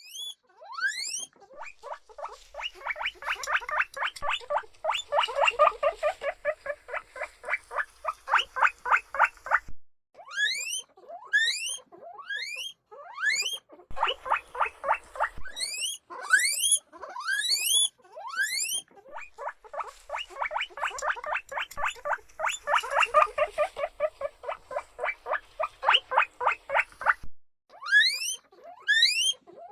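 Guinea pig wheeking: high, upward-sweeping whistles repeated one after another, alternating with long runs of fast, short squeaks, several a second.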